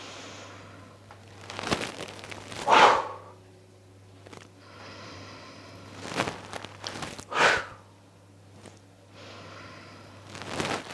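Forceful breathed-out 'whew' exhalations, two clear ones about five seconds apart, each following a quieter in-breath. They are the out-breaths of a yoga movement sequence, paced to the movement. A steady low hum runs underneath.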